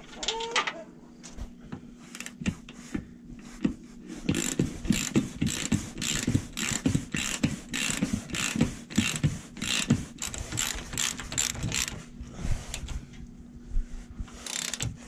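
Hand ratchet wrench clicking in rapid strokes as it turns a nut onto a bolt on a truck's frame bracket. The clicking is densest and loudest from about four to twelve seconds in, then lighter.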